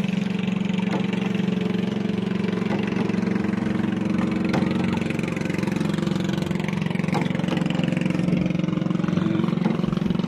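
Steady hum of a motorboat engine running at a constant speed, with a few faint knocks.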